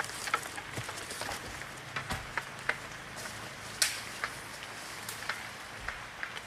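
Sparse, irregular light clicks and snaps, about a dozen, the sharpest a little before four seconds in, over a faint steady hiss.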